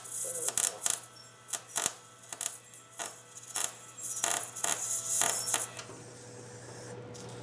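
Electric welder arc crackling in a string of short bursts, then a longer stretch of welding about four seconds in, as a nut is welded onto a broken bolt stub to give a grip for turning it out. The bursts stop a little before the end, leaving a quieter steady hiss and hum.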